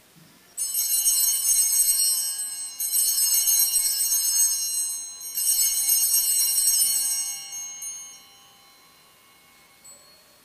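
Altar bells, a cluster of small high-pitched bells, shaken three times, each ring sustaining before the sound dies away. They mark the elevation of the chalice just after its consecration at Mass.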